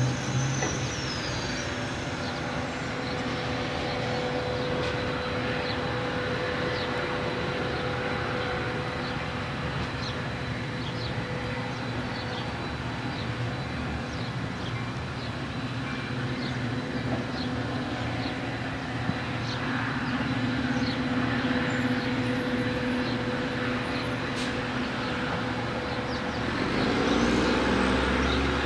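Amtrak passenger train running away down a street-running track laid in the pavement, a steady rumble with a constant hum and faint scattered clicks. A louder low rumble comes in near the end.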